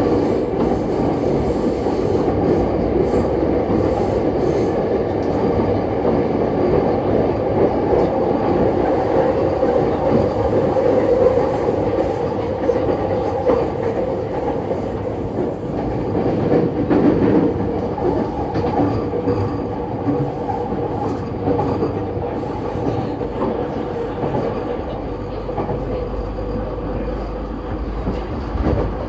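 Running noise inside a JR East E231 series electric train's motor car: wheels on rail with rail-joint clicks and a steady droning tone, fading gradually. The car has an abnormal groaning sound that the uploader thinks comes from the gear area.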